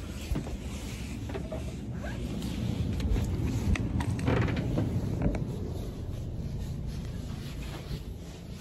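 Handling noise of a phone carried in the hand, with clothing rustling against the microphone and a few light knocks.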